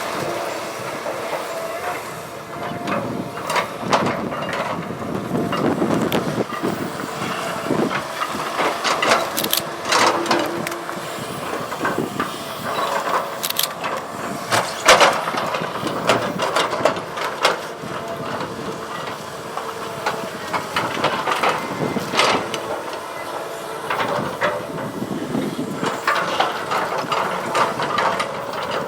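Caterpillar 319D excavator at work: its engine and hydraulics running steadily, with frequent sharp clanks and knocks of metal and material.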